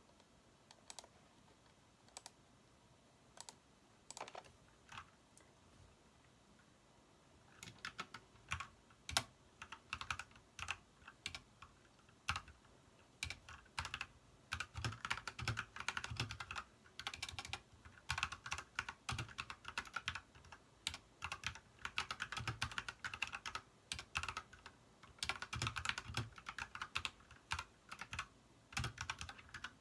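Ajazz mechanical keyboard fitted with cherry blossom keycaps being typed on: a few single key presses at first, then steady fast typing from about seven seconds in.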